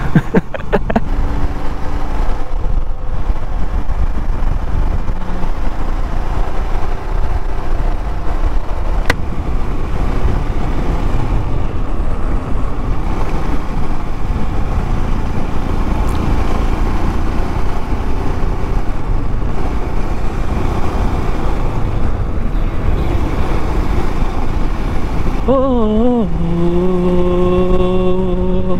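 Royal Enfield Classic 350's single-cylinder engine running on the move, under steady wind and road rumble. Near the end a song starts, a singing voice that wavers and then holds a long note.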